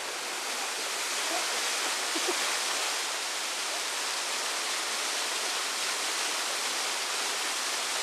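A small mountain waterfall pouring into a rock pool, with steady rushing water.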